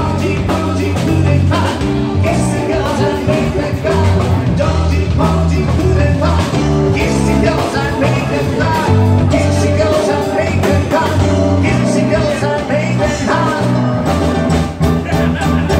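Live band playing an upbeat song with singing over electric bass, keyboard and conga, with a steady bass line.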